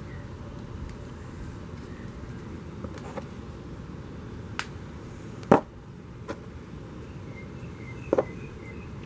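Small metal parts handled on a cardboard-covered surface: a few light clicks, one sharper knock about five and a half seconds in and a quick double knock near the end, as a square metal flange plate and a wire-mesh strainer screen are picked up and set down.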